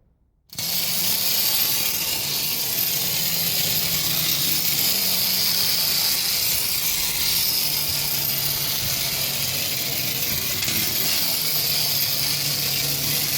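Clockwork spring motor of a 1940s tin wind-up toy car running after being wound, a steady whirring buzz that starts suddenly about half a second in and holds even throughout.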